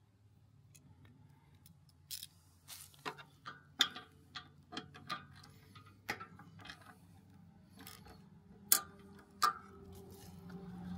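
Metal hand tool clicking and tapping at the drain of a small engine's carburetor fuel bowl, an irregular run of sharp clicks starting about two seconds in, over a faint steady low hum.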